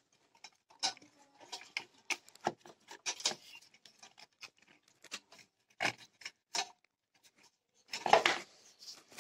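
Irregular clicks, taps and rubbing from a motor-start capacitor and its wires being handled and fitted against a flour-mill motor's metal housing, with a louder cluster of scrapes about eight seconds in.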